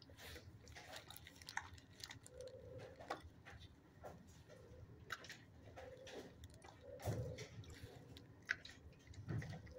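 Faint crunching and scattered soft clicks of a dog chewing small treats.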